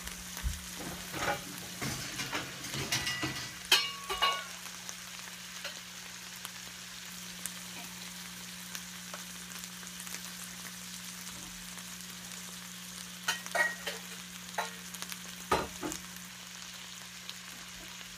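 Off-camera kitchen clatter of pots and utensils, with knocks near the start and again late on, over a steady faint hiss and a low hum.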